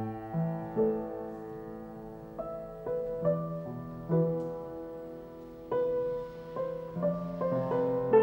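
A slow piece played on an upright piano: chords and single notes struck about once a second, each left to ring into the next.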